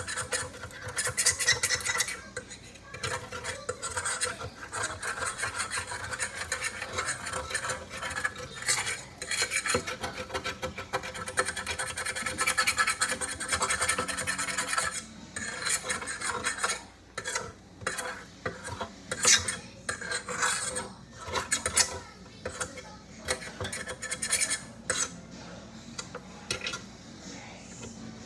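A kitchen utensil scraping and rubbing against a pan or dish, continuously at first, then in separate short scrapes and clinks in the second half.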